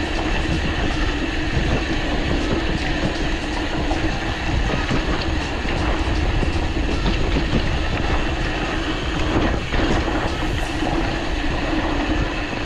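Mountain bike rattling and clattering over a rough dirt trail: a continuous rumble with a steady hum underneath.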